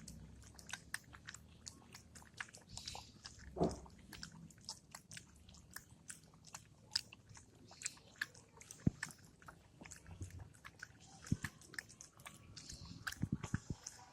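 German shepherd puppy chewing, with irregular crunching clicks and a louder crunch about three and a half seconds in.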